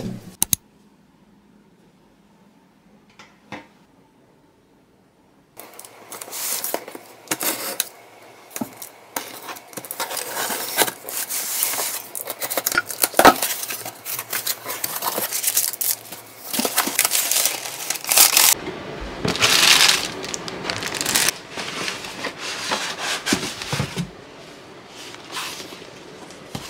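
A cardboard shipping carton being unpacked by hand: its flaps, inner box and packing material rustle, scrape and crinkle, with tearing sounds, from about five seconds in until a few seconds before the end.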